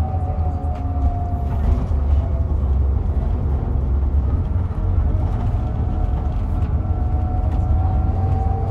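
Scania K440EB coach's six-cylinder diesel engine and driveline running steadily on the move, a deep rumble under a thin whine that drifts slowly down and back up in pitch.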